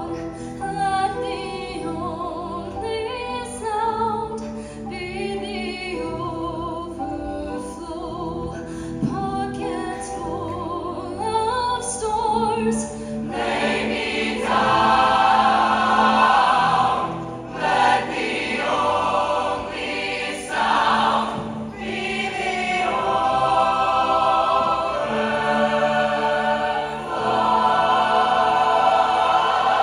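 A 65-member mixed show choir singing in performance. It starts with a thinner texture and swells to the full, louder choir about thirteen seconds in, with two brief breaks a few seconds later.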